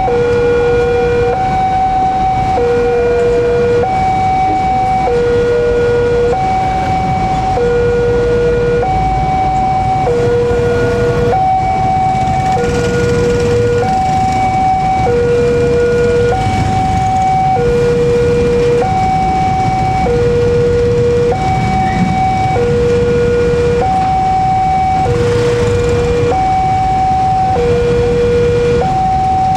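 Electronic warning alarm of a railway level crossing sounding with the barrier down, two tones taking turns, a lower one and a higher one, each held about a second and a quarter. Underneath is a steady low rumble of road traffic and idling engines.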